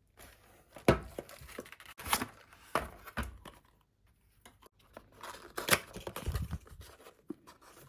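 Packaging being handled while items are taken out of a box: rustling and crinkling with several sharp clicks and knocks, and a short pause about halfway.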